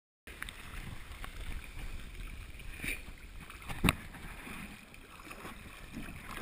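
Sea water sloshing and lapping against a waterproof action camera held at the waterline, cutting in abruptly after a moment of total silence, with small knocks and one sharp hit about four seconds in.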